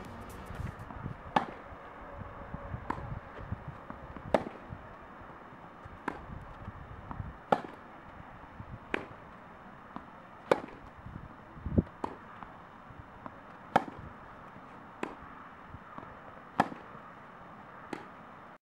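Tennis racket striking the ball in a steady baseline rally: a sharp hit about every second and a half, with fainter knocks between. The sound cuts off abruptly near the end.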